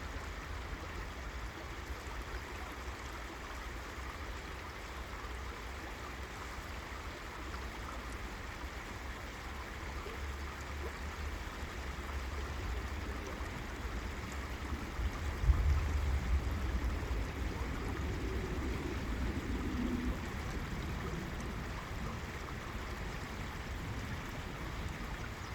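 River water flowing with a steady rushing hiss, over a low rumble that swells briefly about two-thirds of the way through, the loudest moment.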